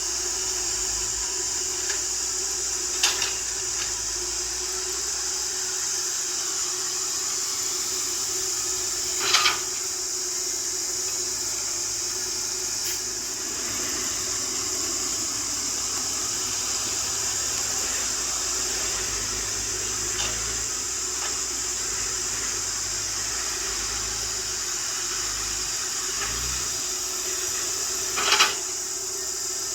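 CAT excavator working: steady engine and hydraulic noise with a high hiss and a low hum. Three short knocks come through, near the start, about a third of the way in, and near the end.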